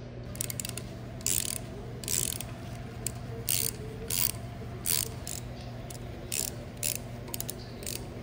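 Ratchet wrench clicking in short runs, roughly one every half second, as threaded housing plugs are tightened down into a pump housing.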